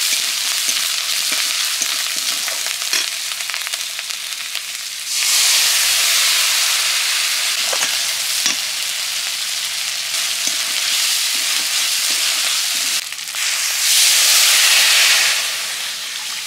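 Spice paste frying in hot oil in a kadai, sizzling steadily while a metal spatula scrapes and stirs it. The sizzle grows louder about five seconds in, and near the end water is poured into the pan, making a loud surge of sizzle that then dies down.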